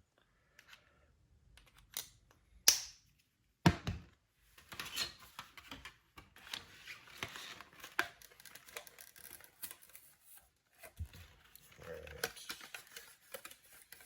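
Unboxing packaging being handled: two sharp clicks about three seconds in, then steady rustling and crinkling of plastic and cardboard with many small clicks.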